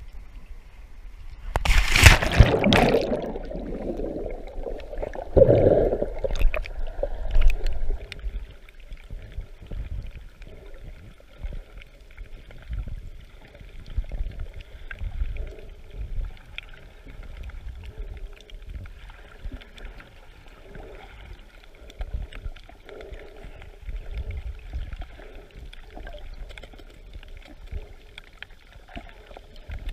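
A loud splash about two seconds in as the action camera plunges under the sea surface, a second rush of water a few seconds later, then muffled underwater sound: water sloshing and gurgling against the camera with a faint steady hum.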